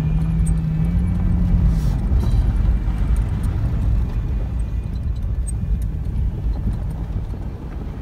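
Off-road vehicle driving on a dirt desert track, heard from inside the cabin: a steady low rumble of engine and tyres on the rough surface, with a low engine note over the first two seconds and scattered small ticks and rattles.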